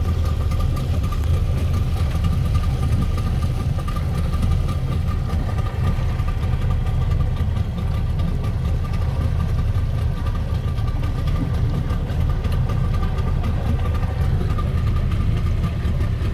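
Motorboat engine running steadily while towing, a low drone with a thin steady whine above it.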